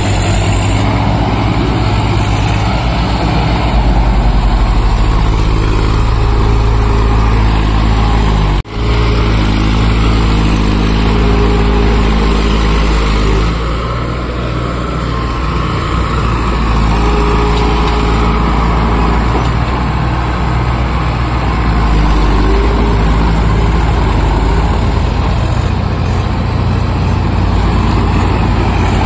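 Diesel tractor engines running steadily while the tractors work through deep mud. The sound drops out for an instant about nine seconds in.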